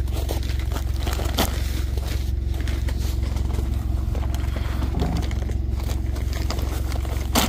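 Delivery truck's engine idling steadily, with scraping and rustling as sacks of pet food are handled at the open cargo box. There is a sharp knock about a second and a half in and a louder one near the end.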